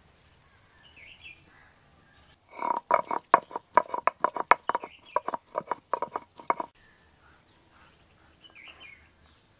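Whole cardamom and cinnamon being pounded with a pestle to crush them: a quick run of sharp strikes, about five a second, each with a brief ringing. The run starts a couple of seconds in and stops after about four seconds.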